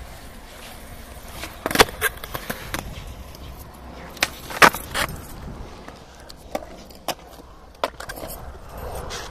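Skateboard wheels rolling on a concrete plaza, broken by a series of sharp clacks of the board hitting the ground. The loudest come about two seconds and four and a half seconds in.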